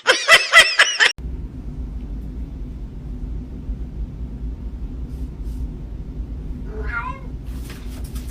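A cat meowing loudly in the first second, then a low steady rumble, with one faint short call about seven seconds in.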